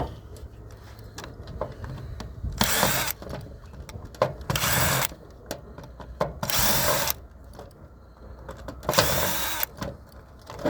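Cordless power screwdriver or drill running in four short bursts, about two seconds apart, backing screws out of the robot vacuum's plastic housing, with small clicks and handling noise between bursts.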